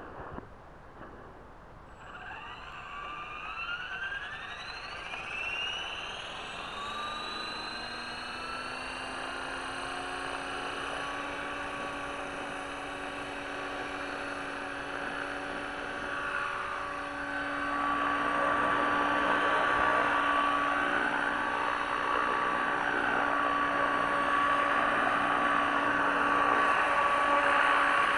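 Electric T-Rex 500-clone RC helicopter spooling up, heard from its onboard camera. A whine from the motor and gears climbs in pitch for several seconds from about two seconds in, then settles into a steady whine with rotor noise. It gets louder about two-thirds of the way through.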